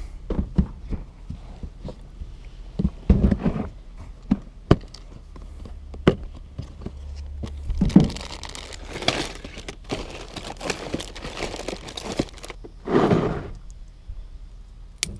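Clear plastic tackle box being unlatched and rummaged through: sharp plastic clicks and thunks, with crinkling of bagged soft-plastic baits as hands dig among them.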